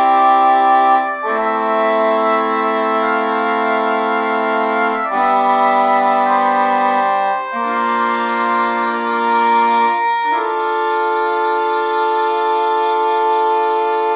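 Sampled woodwinds from the Spitfire Studio Woodwinds library playing slow, sustained chords. Each chord is held for two to four seconds before moving to the next, five chords in all.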